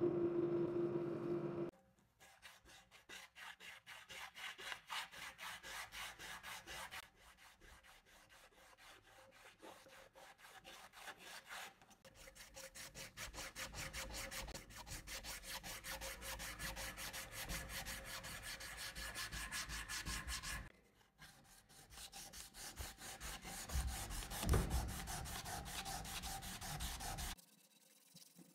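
Abrasive cloth drawn quickly back and forth around a steel gun barrel, a fast, even rubbing scrape with a couple of short pauses, stopping suddenly near the end. It opens with a motor-driven buffing wheel humming steadily, which cuts off about two seconds in.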